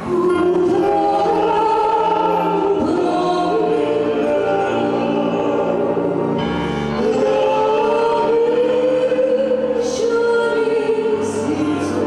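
A man and a woman singing a duet through microphones over instrumental accompaniment, with long held notes. The low accompanying notes change about six seconds in and again near the end.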